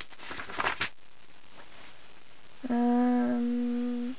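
A woman humming one steady, level note for about a second and a half near the end, after brief rustling in the first second.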